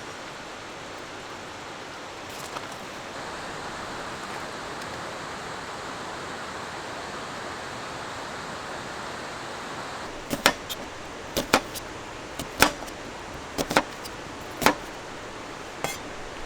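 Steady rush of a valley stream. From about ten seconds in come eight or so sharp knocks, unevenly spaced.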